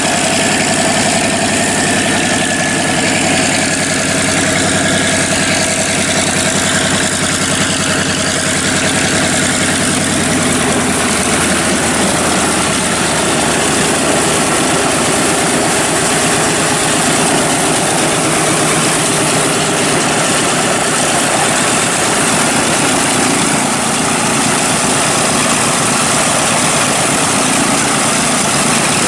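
Grumman TBM Avenger's Wright R-2600 fourteen-cylinder radial engine idling steadily with the propeller turning. A thin whine over the first several seconds fades away.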